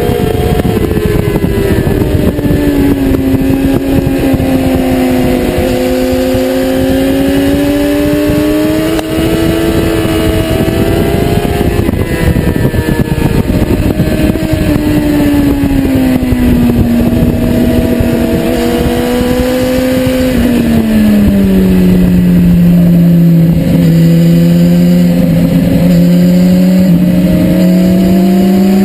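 2010 BMW S1000RR's inline-four engine at track speed, its note falling and rising with the throttle and gear changes through the corners, over wind rush. The pitch drops to its lowest about two-thirds of the way through, then climbs slowly toward the end.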